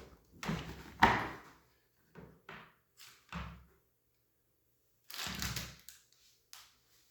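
Hard clunks and knocks of a Milsig T17 paintball marker and a magazine being handled and fitted together, the loudest clunk about a second in, with several more spread through.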